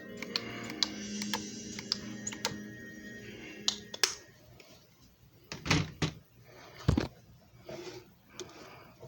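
Soft background music through the first few seconds with scattered sharp clicks over it, then two loud dull knocks a little over a second apart, with a few softer clicks afterwards.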